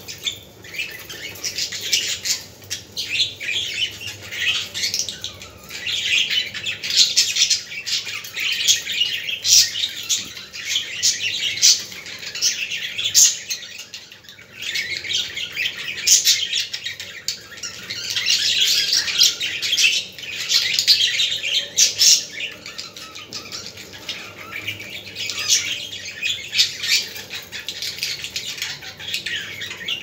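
Several caged budgerigars chattering and chirping without a break, a busy warble mixed with sharper chirps and squawks, with a short lull about halfway.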